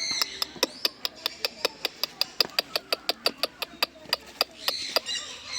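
A rapid, even run of sharp taps, about six a second for about four seconds, with a bird's squawking call just before them and again near the end.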